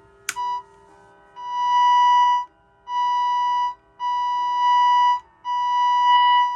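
A steady high-pitched test tone from the EICO 150 signal tracer's speaker, cutting in and out five times for roughly a second each, with a click just before the first. The signal is being fed in at the center tap of the tracer's gain control.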